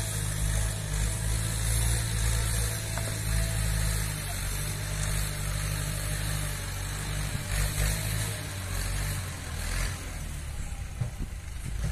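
Tractor engine running steadily, its low note thinning a little about four seconds in.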